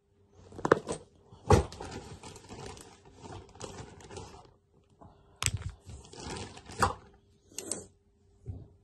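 Rummaging through a clear plastic makeup bag: cosmetic items knock and clatter against each other amid rustling of the bag, in two spells with several sharp knocks.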